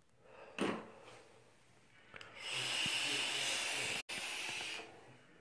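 A long, steady hiss of breath through a vape during a big hit, lasting about two and a half seconds, after a short sharp breath about half a second in.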